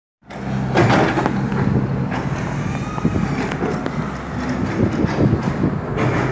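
Heavy construction machinery's diesel engine running, a steady hum that gives way after about two seconds to a rougher, noisier rumble.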